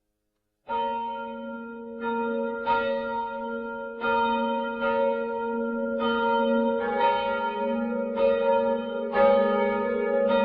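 Church bells of the Cathedral of Santo Antônio ringing in a peal. They start about a second in and are struck roughly once a second, each stroke ringing on under the next.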